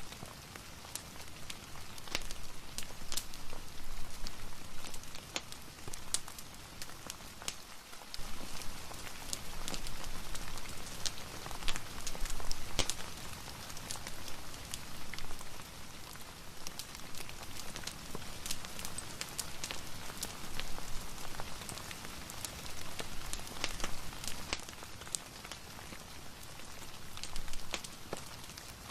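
Steady rain mixed with a crackling fireplace: a continuous hiss dotted with many small sharp pops and drips.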